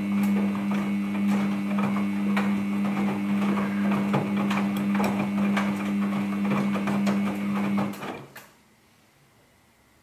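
Samsung Ecobubble front-load washing machine with its drum turning in a wash: a steady motor hum under the swish and knocking of wet clothes tumbling inside. It stops about eight seconds in.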